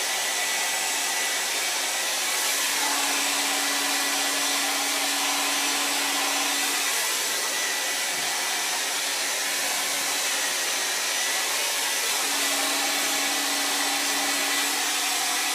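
Revlon handheld hair dryer running steadily, blowing hot air to dry hair, a loud even rush of air with a faint hum that comes and goes twice.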